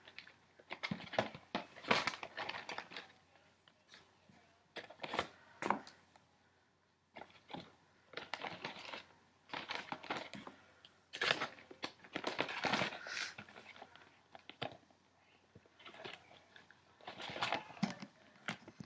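Crinkling and rustling handling sounds with small clicks, coming in irregular bursts separated by short pauses.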